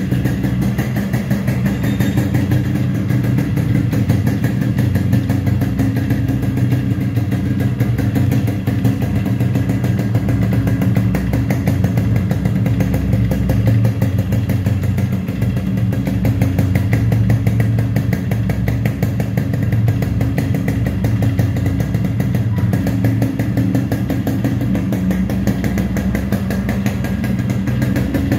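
Yamaha RXS 115's single-cylinder two-stroke engine running steadily without revving.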